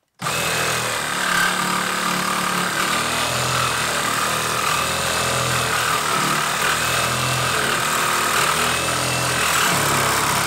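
KIMO cordless reciprocating saw, fitted with an 18-teeth-per-inch metal-cutting blade, sawing steadily through a metal pipe. It starts abruptly just after the beginning and runs on without a break, with a high squeal over the blade's stroking.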